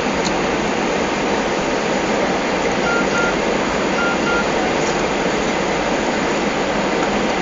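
Airliner cabin noise during the approach: steady jet engine and airflow noise heard from inside the passenger cabin.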